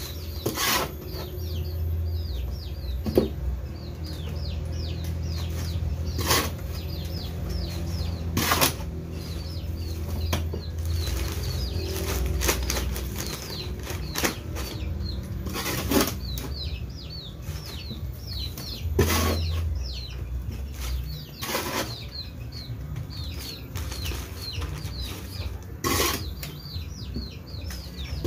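Plastic polybags being filled with a manure and rice-husk-charcoal planting mix: a loud rustle or scrape every two to four seconds. Small birds chirp steadily throughout, and a low hum comes and goes.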